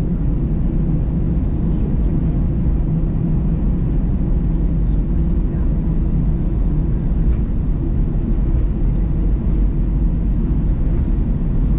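Airbus A319 cabin noise while taxiing: the jet engines at taxi idle and the rolling of the airliner make a steady low rumble, heard from a seat over the wing.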